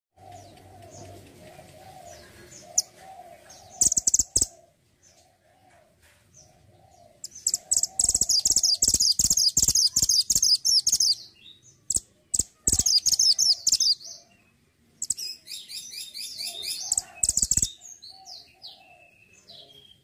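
Caged mantenan gunung singing in loud, fast, high-pitched trilling phrases. It gives four bouts, the longest lasting about four seconds from around seven seconds in.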